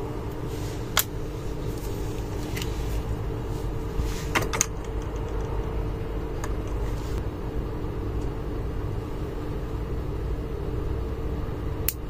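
Steady low hum and rumble from unseen background machinery, with two constant tones. It is broken by a few light clicks of small electronic parts and a circuit board being handled, the sharpest about a second in and near the middle.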